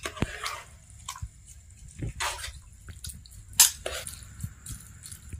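Metal spoon stirring a large metal pot of cooked rice: irregular clinks of the spoon against the pot and soft wet squishing of the rice.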